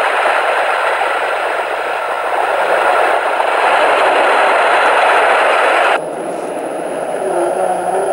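Cloud b Sleep Sheep soother playing its recorded spring-rain sound, a steady hiss, through the toy's small speaker. About six seconds in it switches abruptly to the quieter whale-song track, with low gliding calls.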